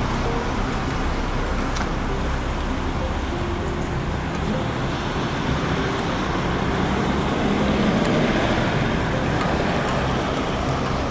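Steady street traffic noise, tyres hissing on a wet road, swelling a little about eight seconds in as a car passes.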